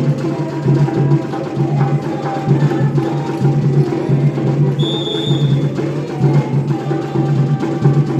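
A band rehearsing an instrumental passage: percussion keeping a steady beat over a pulsing bass line, with melodic instruments above.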